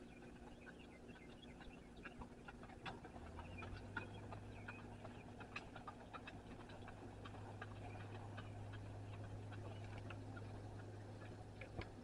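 Faint hoofbeats of a horse walking on a gravel arena, scattered soft clicks about two a second. A low steady hum comes in about three seconds in.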